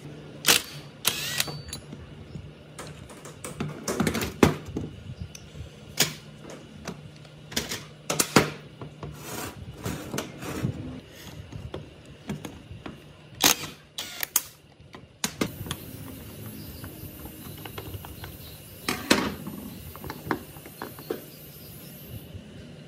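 Irregular clicks and knocks of tools and metal parts being handled during a workshop restoration of a backpack blower, over a faint low hum that fades out about halfway.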